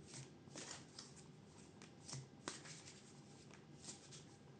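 Faint hand-shuffling of a tarot deck: a string of soft, irregular card flicks and slaps, the clearest a little past halfway.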